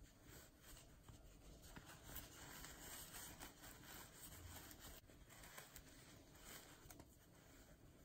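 Faint rustling of fingers rubbing and squeezing the fur of a plush toy, with a few light clicks.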